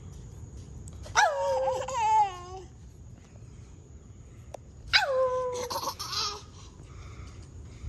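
A toddler laughing in two long squealing bursts, about a second in and again about five seconds in, each sliding down from a high pitch and wavering.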